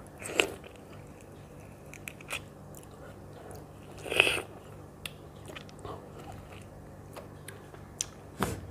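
A person eating ripe mango slices, biting the flesh off the skin: a louder bite about half a second in and another about four seconds in, with small chewing and mouth clicks between.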